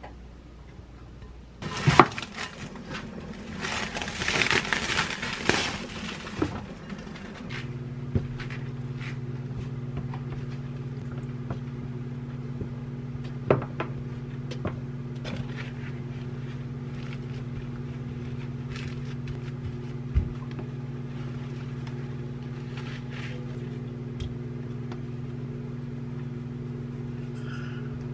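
Kitchen food prep: a sharp knock, then a few seconds of paper towel crinkling and scraping as raw chicken wings are handled and patted dry. After that a steady low hum takes over, with a few light taps.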